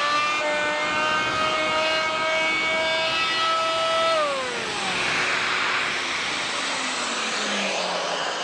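Fein MultiMaster oscillating multi-tool fitted with its round sanding pad, running at speed with a steady high whine, then switched off about four seconds in and winding down in pitch. A steady rushing hiss carries on after the motor dies away.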